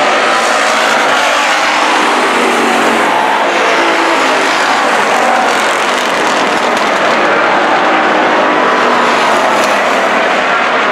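A field of dirt-track race cars racing around the oval, their engines running together loud and steady.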